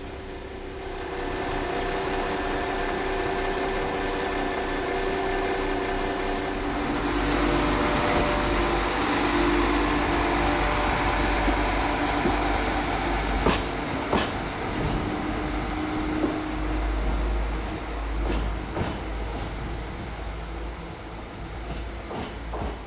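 West Midlands Railway diesel passenger train running past along the platform. An engine drone swells about seven seconds in, then the wheels clatter over rail joints with several sharp clicks around halfway and again near the end.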